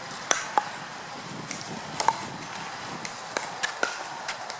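Pickleball rally: sharp pops of paddles striking the hard plastic ball and the ball bouncing on the court, about eight at irregular intervals, the loudest a quick pair about two seconds in.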